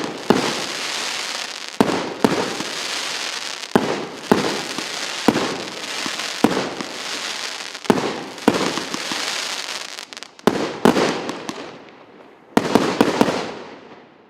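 A consumer fireworks salute battery firing: sharp shots every second or two, each followed by a long crackling hiss from the bursting stars. Near the end comes a quick run of several shots, then the crackle dies away.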